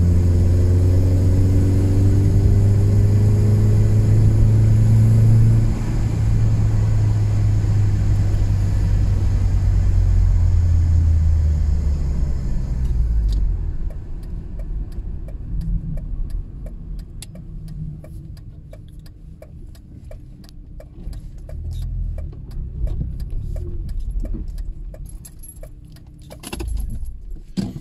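BMW E36's engine running at steady low revs, then falling away about halfway through. In the quieter second half comes a long run of even clicks, about two to three a second, with some rattling over low rumble, and a louder knock near the end.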